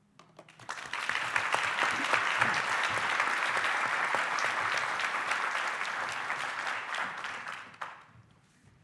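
Audience applauding at the end of a talk: the clapping builds within the first second, holds steady, and dies away about eight seconds in.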